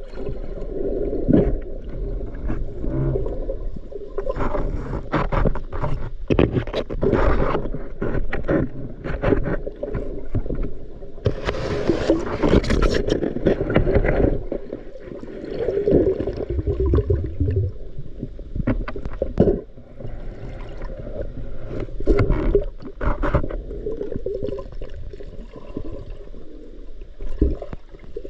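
Muffled water noise heard from a camera in the water: sloshing and bubbling, with many irregular knocks and scrapes. A brighter rush of bubbling comes about halfway through.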